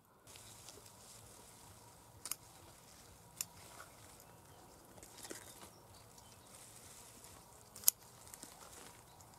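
Hands picking young onion shoots from a garden bed: faint rustling of the plants with three sharp clicks, the loudest near the end.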